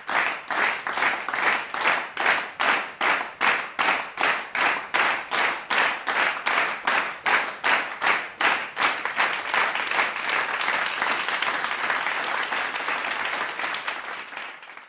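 A crowd clapping together in a steady rhythm, about two and a half claps a second. About nine seconds in it breaks into continuous applause, which fades out at the end.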